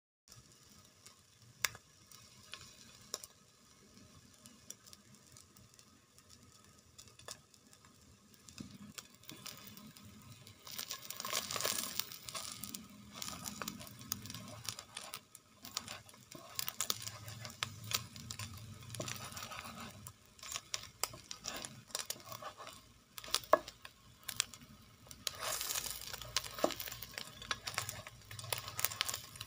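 Egg-and-leek omelet rolls frying in oil in a nonstick pan: a faint sizzle with occasional ticks at first, growing louder about a third of the way in. From then on a spatula scrapes and knocks against the pan as the pieces are turned and moved.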